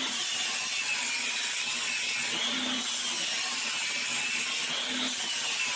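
Belt grinder running with a 52100 bearing-steel knife blade pressed against the abrasive belt: a steady grinding hiss with a whine that slowly rises and falls in pitch.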